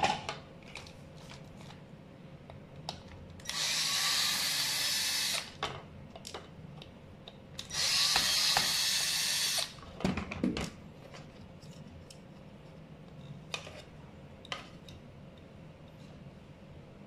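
Cordless drill-driver running in two bursts of about two seconds each, backing screws out of a scooter's metal panel, with light clicks and knocks of handling between.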